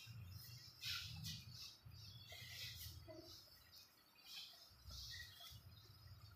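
Faint birds chirping in scattered short calls, over a low steady background rumble.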